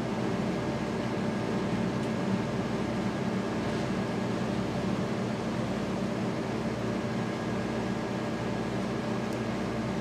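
A steady, unchanging machine hum. It is an even drone with no clicks or breaks.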